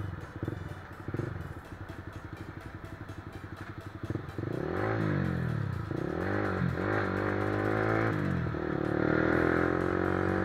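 Motorcycle engine running with a fast, even pulse, then from about four seconds in revving up and down in several rising-and-falling sweeps, climbing steadily again near the end.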